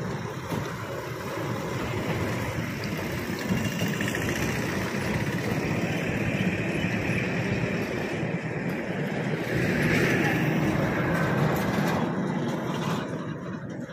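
Diesel tipper trucks driving past close by on a road, a continuous rumble of engine and tyre noise that is loudest about ten seconds in.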